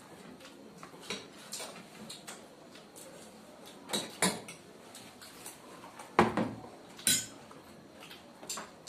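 Cutlery clinking and scraping against plates while eating, a scatter of short clicks with a few louder knocks.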